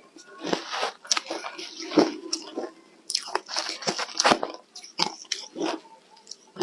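Ice dusted with matcha powder being bitten and chewed: a string of sharp, crisp crunches, several bites in a row.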